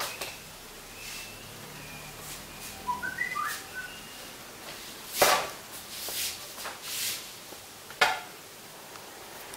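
A few short, rising whistle-like chirps about three seconds in, then four sharp knocks or bumps, the loudest about five seconds in.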